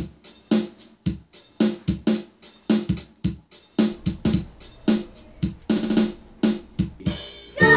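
Background music with a steady electronic drum beat, about two beats a second, each with a short pitched note. Near the end a sustained keyboard chord comes in.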